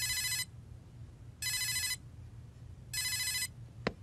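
Mobile phone ringing with an electronic ringtone: three identical half-second rings about a second and a half apart. A single short click just before the end.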